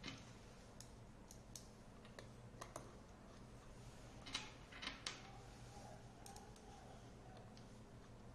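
Faint, scattered metallic clicks and ticks as a T-handle key turns in the screws holding a steel brake disc onto a scooter hub motor, with a few louder clicks about halfway through.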